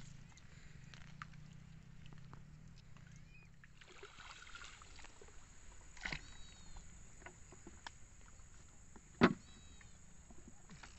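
Small wooden boat being poled with a bamboo pole through shallow flooded grass, with two sharp knocks of wood on wood, a light one about six seconds in and a loud one about nine seconds in.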